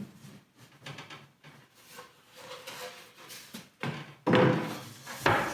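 Wooden tool chest being handled: scattered light taps and knocks, then a louder wooden thunk about four seconds in, followed by a second or so of rubbing and knocking.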